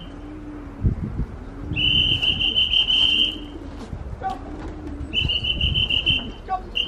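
Domestic racing pigeons cooing at the loft in low, repeated calls, with two long shrill trilled whistle tones, one about two seconds in and one about five seconds in.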